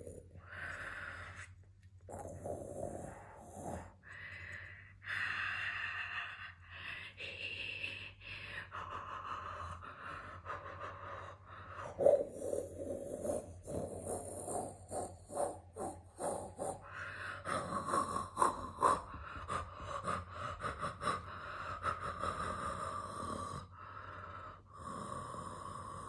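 Close rustling and brushing of a plush cushion's fur against the phone's microphone, mixed with a person's breathing. There are breathy patches at first, and dense scratchy rubbing from about halfway through.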